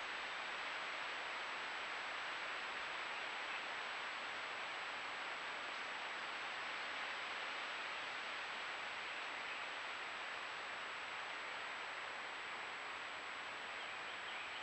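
Steady hiss from a trail camera's microphone, with a thin, high, steady tone above it and no distinct animal sounds.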